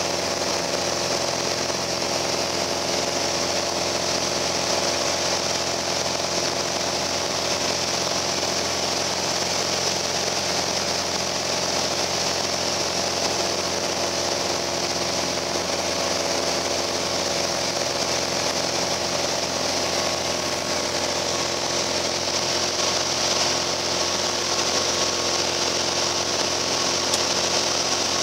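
Piper Cherokee Arrow's single piston engine and propeller running steadily in flight, heard from inside the cabin as an even drone with a hiss on top.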